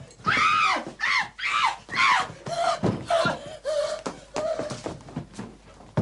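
A woman's high-pitched screams in quick succession, about two a second, rising and falling in pitch, becoming lower and shorter cries in the second half. A single thud comes at the very end.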